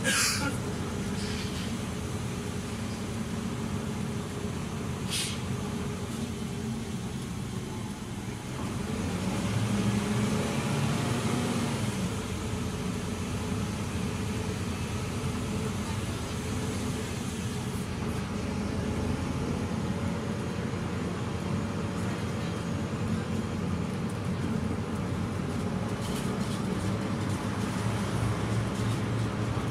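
Inside a city bus: the engine and drivetrain running under a steady rumble of road noise and rattle. There is a short sharp noise right at the start and another about five seconds in. About nine seconds in, the engine note rises and gets louder as the bus picks up.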